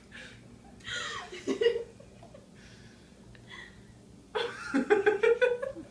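A person laughing and breathing hard in short bursts, once about a second in and again, longer and more choppy, near the end.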